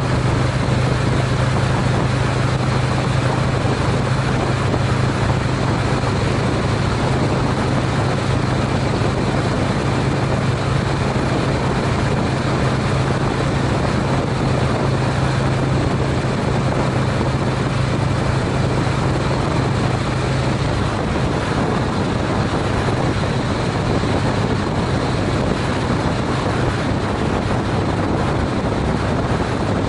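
Honda CTX700N motorcycle's parallel-twin engine running steadily at highway speed, under a steady rush of wind and road noise on the bike-mounted camera. The low engine hum drops in level about two-thirds of the way through as the bike eases off from about 59 mph.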